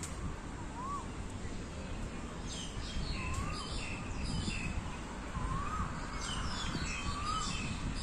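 Birds calling in park trees: a short rising-and-falling whistled note repeated every couple of seconds, joined from about two and a half seconds in by bursts of quick high chirps. Under them runs a steady low background rumble.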